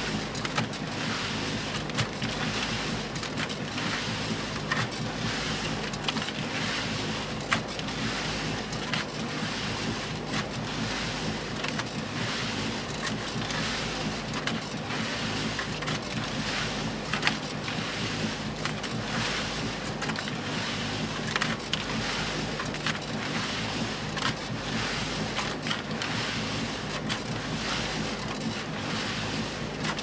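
Concrete mixer running with wet concrete churning in the drum: a steady gritty rushing with frequent sharp clicks of stone, over a faint steady low motor hum.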